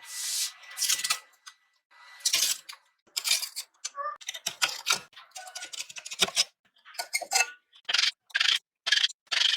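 Rust being scraped or sanded off a steel sword blade by hand: a run of short, rough scraping strokes that settle into about two strokes a second in the second half.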